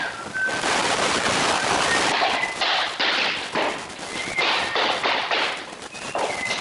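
Wooden floor planks clattering and knocking as they are handled and fitted on foam underlay, a dense, rapid run of sharp knocks with short pauses.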